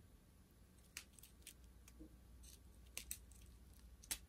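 Faint crinkles and clicks of a strip of small plastic bags of square diamond-painting drills being handled and slid along, about half a dozen short sounds with the loudest near the end.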